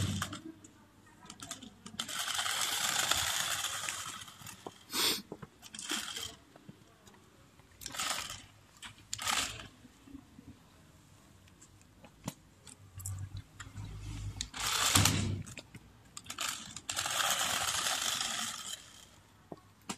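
Toy double-sided stunt RC car's small geared electric motors whirring in repeated bursts as it drives, spins and flips on asphalt: two longer runs of about two seconds and several short spurts between them. A loud low rumble comes about three-quarters of the way through.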